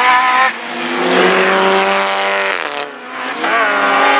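Race car engines running at high revs as cars pass on the circuit. The engine note drops sharply in pitch about two and a half seconds in as a car goes by, and another engine's wavering note comes up near the end.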